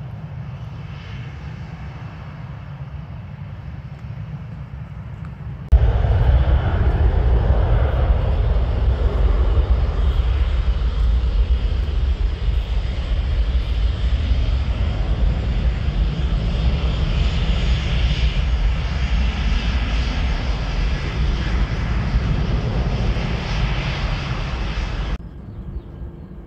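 Ryanair Boeing 737's jet engines: a steady low rumble, then about six seconds in a sudden much louder jet roar with a strong deep rumble, held for nearly twenty seconds before it drops off abruptly near the end.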